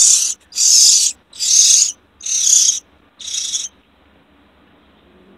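Bird's harsh, hissing distress screeches, about one a second, close and loud, stopping about two-thirds of the way through.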